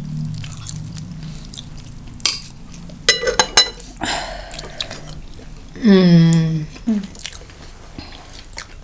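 Close-miked eating sounds: biting and chewing of Korean fried chicken wings, with a few sharp clicks of metal chopsticks against the bowl about three seconds in. A short hummed 'mm' comes near the middle.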